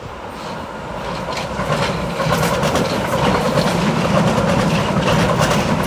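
A train running past on the rails, growing louder over the first two seconds and then holding steady, with wheels clattering over the track.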